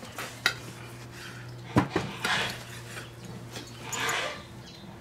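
Kitchen knife slicing through a raw pork neck on a plastic cutting board: soft sawing strokes, with two sharp clicks of the blade or board, the louder one a little under two seconds in.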